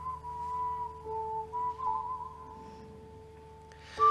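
Soft dramatic background score: a sustained high, whistle-like melody that steps gently in pitch over a low steady drone. Near the end the music swells together with a short sharp breath.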